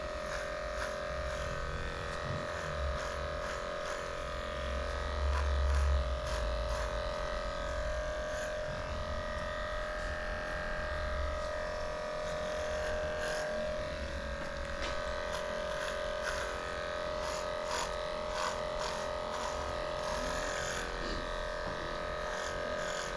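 Electric dog grooming clippers running steadily with a constant motor buzz while shaving through matted coat. A brief low rumble comes about five seconds in.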